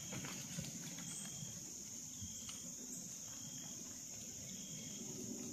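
Steady, high-pitched chorus of crickets and other insects, with a few short faint chirps over it.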